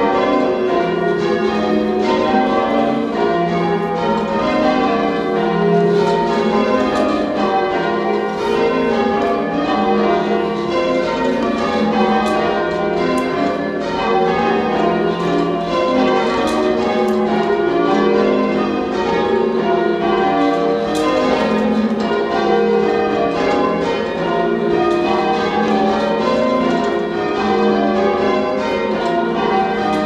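A ring of church tower bells being change-rung, the bells striking one after another in a steady, unbroken rhythm, heard from the ringing chamber below them.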